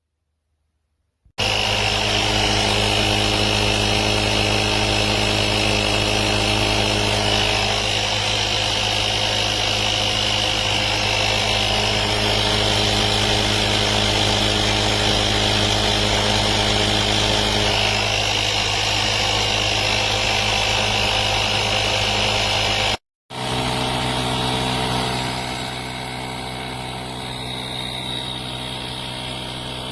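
Cordless 21-volt tire inflator's piston compressor running steadily with a constant hum and whine, starting suddenly a little over a second in. After a brief break near the end, a similar steady motor sound carries on, quieter for its last few seconds.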